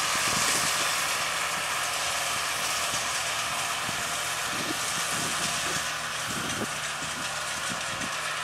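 New Holland farm tractor's engine running steadily as it pulls a Feraboli round baler working through rice straw, engine and baler machinery blending into one even machine sound.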